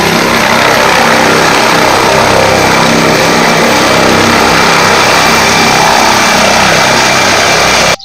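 Helicopter running at take-off power as it lifts off the ground: a loud, steady engine and rotor noise with a thin high whine above it.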